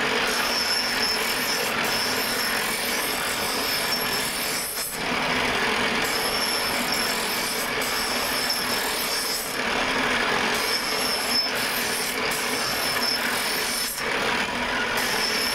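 Scissor blade ground against a foot-pedalled grinding wheel: a steady grinding hiss with a thin high ring, broken by short pauses about five, ten and fourteen seconds in.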